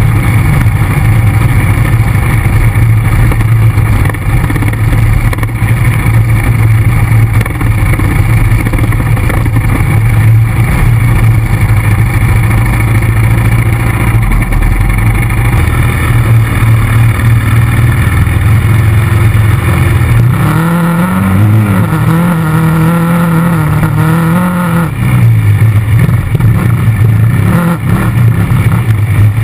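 ATV engine running steadily while riding. About two-thirds of the way through, the revs climb and waver for a few seconds, then settle back to the lower steady note.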